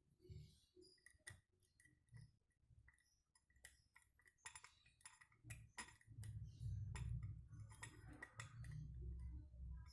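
Faint, irregular light metal clicks and clinks, as of tools and small metal parts being handled, with dull low bumps in two stretches in the second half.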